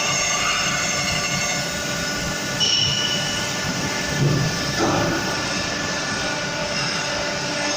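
Crankshaft grinding machine running with its wheel grinding a six-cylinder engine crankshaft: a steady mechanical whine of several high tones over a rumble. A short higher squeal comes about two and a half seconds in, and a few brief knocks follow around the middle.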